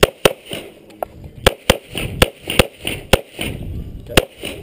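A pistol fired in a quick, uneven string of about eight shots. It is the shooter's secondary weapon, used after the AR-15 jammed with a double feed.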